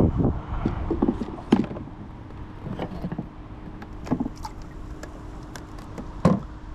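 Wind buffeting the microphone as a low rumble, with scattered sharp knocks and clicks of fishing gear and handling on a fishing kayak, over a faint steady hum.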